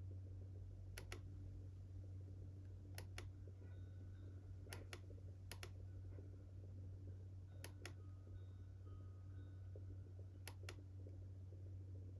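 Computer mouse clicking, six sharp double clicks a second or two apart, over a steady low electrical hum.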